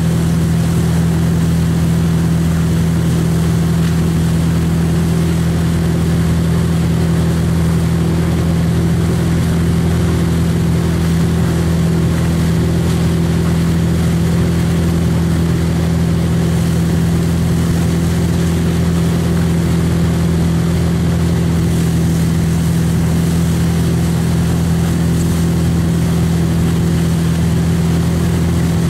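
Motorboat engine running steadily at a constant speed as it tows a wake surfer, a steady low drone over the rush of the churning wake.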